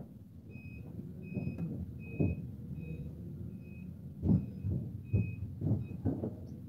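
An electronic vehicle warning beeper sounding a steady series of short, high beeps, about one every three-quarters of a second, stopping near the end. Several dull knocks and thumps sound among the beeps, the loudest about four seconds in.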